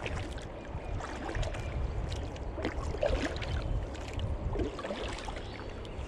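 Kayak paddle working the water: irregular splashes, gurgles and drips beside a plastic kayak hull, over a steady low rumble.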